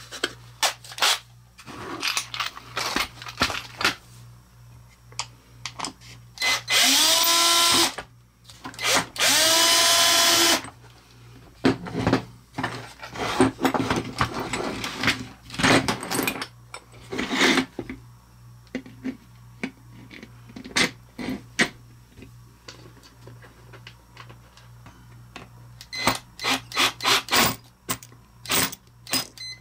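A power drill driving 6-32 machine screws in two short runs about two seconds apart, its whine rising in pitch as it spins up each time. Clicks and knocks of screws and parts being handled come between the runs.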